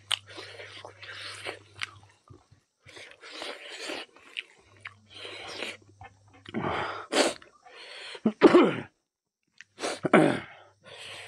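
Close-miked chewing and wet mouth sounds of a man eating curry and rice by hand, in short bursts, with several louder sudden ones in the second half.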